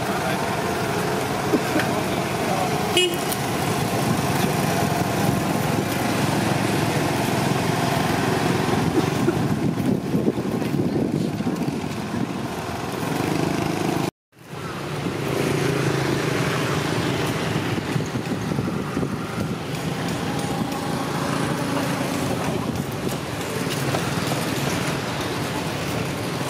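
Steady outdoor background din, like road traffic, with a brief cut to silence about fourteen seconds in.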